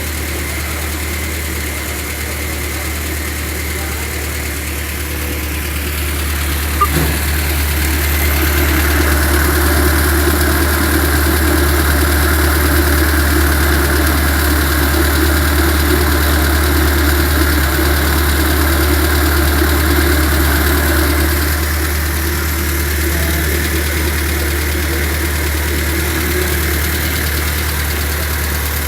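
Seat 850 Especial's small rear-mounted inline-four engine idling steadily on its first run after a full rebuild. It runs a little faster and louder from about eight seconds in until about twenty-one seconds, then settles back. There is one short click about seven seconds in.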